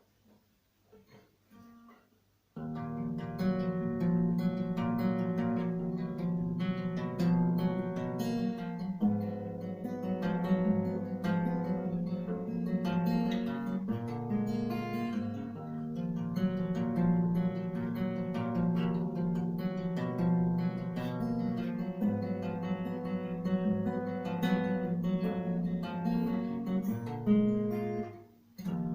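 Acoustic guitar playing a song's introduction, starting about two and a half seconds in after near silence, with picked and strummed chords. It breaks off briefly near the end.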